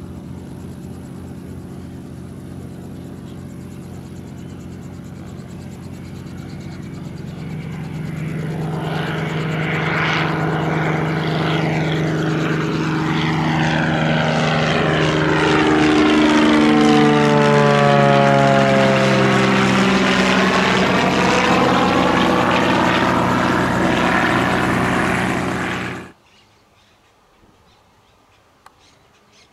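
Cessna 206H Stationair's six-cylinder piston engine and propeller at takeoff power, growing louder as it climbs out and passes overhead, its pitch falling as it goes by. The sound cuts off suddenly a few seconds before the end, leaving only faint background.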